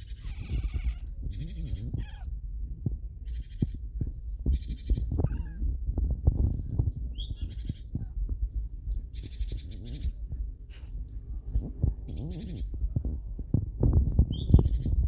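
A domestic cat meowing and chirping at birds in short calls, with brief bird chirps over a low rumble.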